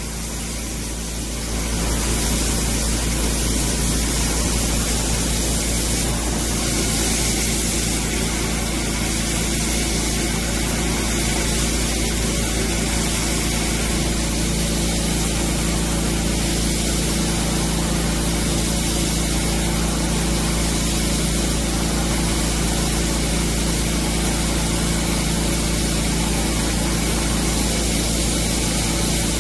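Automatic sanding machine for bits running: a steady rushing hiss of abrasive blasting over a constant motor hum, getting louder about a second and a half in.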